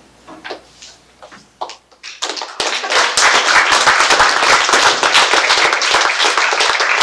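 A few faint taps, then an audience bursts into applause about two seconds in, dense and steady to the end.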